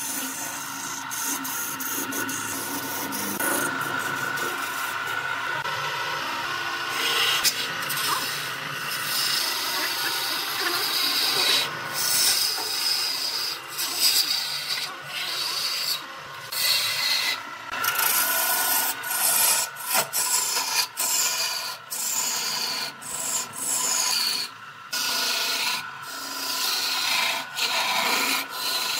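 Lathe tool cutting into spinning wood on a woodturning lathe, a rough scraping hiss as shavings fly off. The cutting runs almost unbroken at first, then in the second half comes in short passes of a second or two with brief breaks between.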